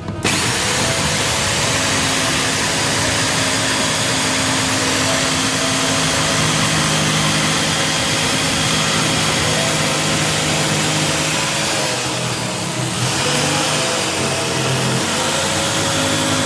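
Power drill driving a hole saw through a countertop: a loud, steady motor whine with cutting noise, its pitch sagging briefly about twelve seconds in and again about fifteen seconds in as the saw bites.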